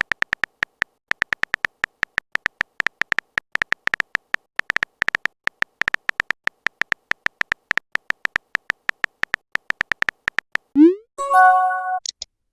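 Rapid, irregular clicking of a phone-keyboard typing sound effect, several taps a second, as a chat message is typed out. Near the end it stops and a rising swoop and a short electronic chime sound: a message alert.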